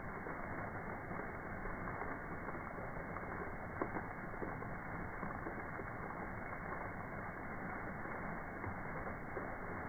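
Outdoor fountain jets splashing onto rocks and into the pool: a steady, muffled rush of falling water, with a few light clicks about four seconds in.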